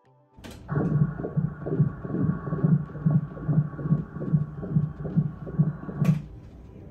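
Fetal heartbeat heard through an ultrasound machine's Doppler audio: a fast, even pulse of about 145 beats a minute, within the normal range for a fetus. It starts abruptly and cuts off about six seconds in.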